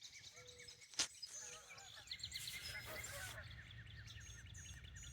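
A flock of geese honking, many short calls overlapping one another, with a sharp click about a second in.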